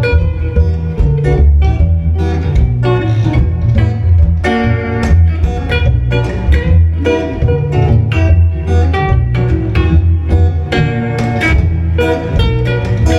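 Guitar-led music: plucked and strummed guitar over a steady bass line, playing continuously.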